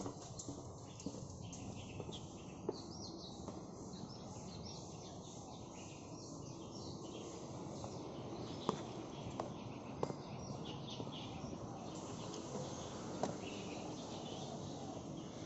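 Small birds chirping over a steady outdoor background, with a few sharp clicks.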